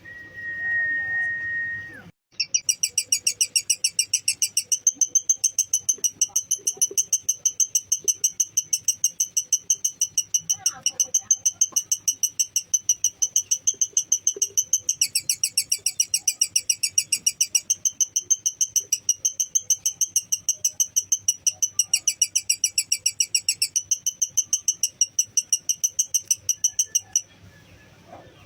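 Lovebird's long 'ngekek' song: a rapid, very even string of shrill chirps, about five a second, kept up for some 25 seconds, dipping slightly in pitch twice before it cuts off suddenly. It is preceded by a steady whistle tone of about two seconds.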